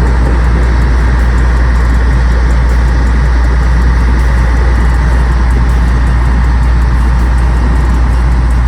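An engine running steadily: a loud, unchanging low rumble with a hiss over it.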